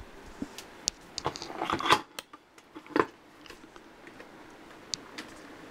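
Metal turntable platter and changer parts of a BSR record changer being handled: scattered light clicks and a brief rustle, then a single sharp knock about three seconds in as the platter is set down over the spindle, followed by a few faint ticks.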